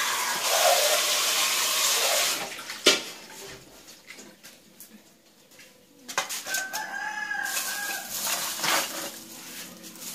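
Hands splashing and sloshing water in a large aluminium bowl while washing snails, with one sharp knock a little before three seconds in. About six and a half seconds in, a rooster crows once in the background, a call of about a second.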